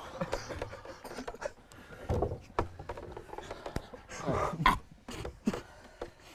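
Several young men stifling laughter behind their hands: muffled snorts, breaths and giggles, with a louder burst of suppressed laughter about four and a half seconds in.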